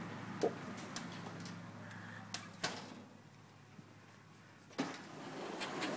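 A few scattered knocks and taps, about four in all and spread over several seconds, over a steady low hum.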